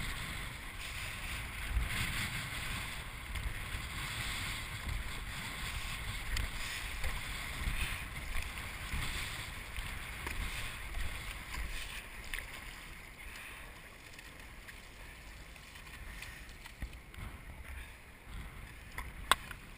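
Paddle strokes splashing and water rushing along the hull of an Epic V10 Sport surfski, with wind rumbling on the deck-mounted microphone. The splashing softens about two-thirds of the way through.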